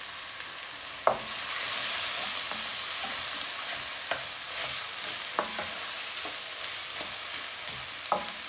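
Diced onions sizzling in hot vegetable oil in a metal pan, stirred with a wooden spoon. The spoon knocks against the pan a few times, loudest about a second in.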